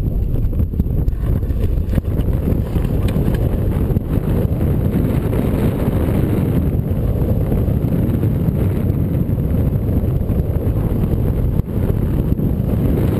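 Wind buffeting the microphone of a camera mounted on a hang glider's wing: a steady, loud low rumble as the glider launches and flies.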